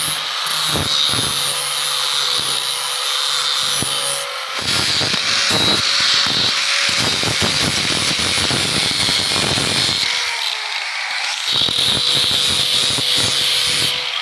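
Electric angle grinder with an abrasive disc grinding the steel blade of old tin snips clamped in a vise: a steady motor whine over the gritty rasp of the disc on metal. The grinding grows heavier in the middle and eases briefly about ten seconds in before going on.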